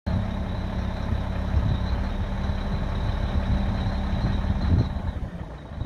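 Scania P380 tipper truck's diesel engine running steadily while its hydraulics raise the tipper body, with a thin, steady high whine that stops about five seconds in.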